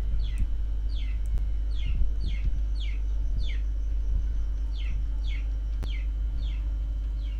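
A bird chirping over and over, short falling notes about two a second, over a steady low hum.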